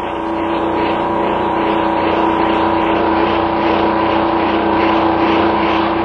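A steady machine drone with a held hum, swelling a little over the first second and easing off near the end.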